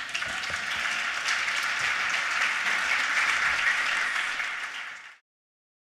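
Audience applauding, a dense crackle of many hands clapping, cut off abruptly about five seconds in.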